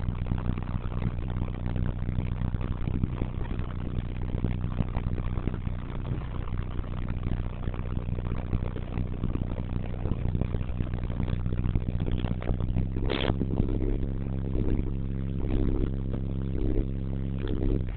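Isuzu turbo diesel engine running steadily, heard from the cab. About thirteen seconds in there is a brief high-pitched sound over it.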